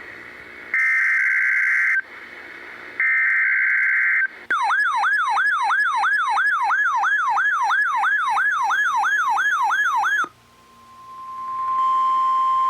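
Emergency alert broadcast tones: two bursts of screechy digital SAME header data about a second apart, then a siren-like alert tone sweeping downward about three times a second for roughly six seconds. It cuts off and a steady NOAA Weather Radio warning alarm tone fades in and holds.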